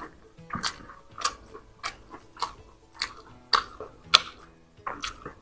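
A person chewing fried chicken drumstick meat close to the microphone: wet, smacking chews at a fairly even rhythm, nearly two a second.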